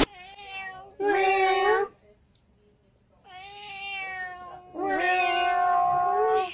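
A domestic cat meowing four times. After the second call there is a pause of over a second, and the last meow is the longest and loudest, drawn out for nearly two seconds.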